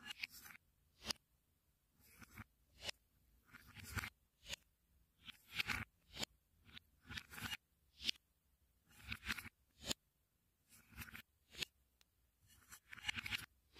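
A spoon scraping as it scoops small wooden balls out of wooden cups, each ball landing with a sharp clack in a wooden bowl. The scoop-and-drop repeats about every two seconds, a scrape followed by one or two clicks.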